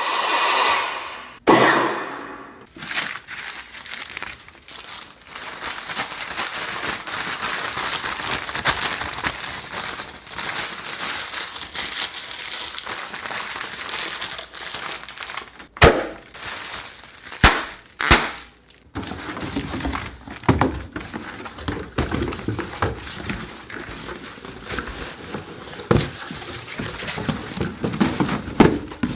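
Phone-recorded crinkling and crumpling noise, made as raw material for a homemade explosion sound effect. Partway through come a few sharp cracks, and after them a stretch of lower thuds and knocks.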